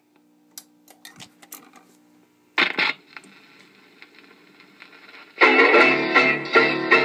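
1954 RCA EY-3 45 rpm record changer cycling between plays: the music cuts off, then come a few light clicks over a steady low hum, a clunk about two and a half seconds in as the changer mechanism works, and the guitar-led music starts again about five seconds in.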